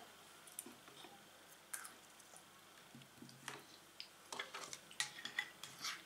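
Faint, scattered taps and clicks of a peeled cucumber and a kitchen knife being handled on a wooden cutting board, coming more often in the second half.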